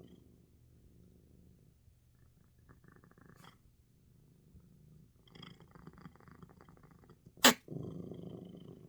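Domestic cat purring, the hum fading low in the middle and coming back strongly near the end. About seven and a half seconds in, one short, sharp, loud burst cuts through it.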